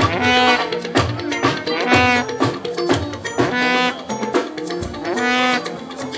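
Fuji band music played live: drums and percussion under a wavering high melodic line that comes back about every two seconds.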